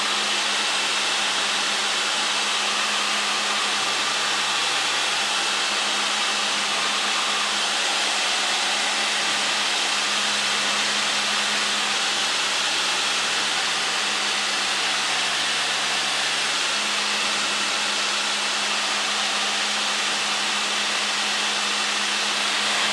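Steady drone of a light aircraft's piston engine and propeller with the rush of airflow, heard inside the cabin in level cruise. Constant hums sit under an even hiss, unchanging throughout.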